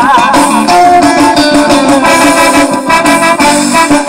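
Loud music playing through a miniature Fiat Palio's custom car-audio box of horn tweeters and cone woofers.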